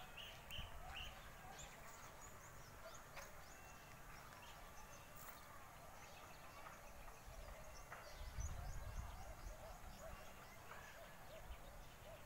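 Faint outdoor ambience of many small birds chirping and calling, with a brief low rumble on the microphone about eight seconds in.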